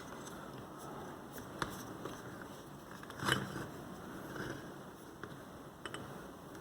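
Faint handling noise of a small metal lock cylinder and tools, with a few light clicks and taps, the loudest about three seconds in.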